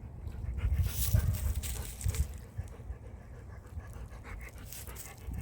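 Labrador retriever panting, in repeated breathy stretches that are loudest about a second in and again near the end.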